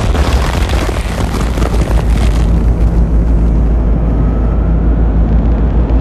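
Designed sci-fi effect of a giant alien mothership's engine: a loud, deep rumble with a crackling layer on top that fades out after about two and a half seconds, leaving the low rumble and a faint hum.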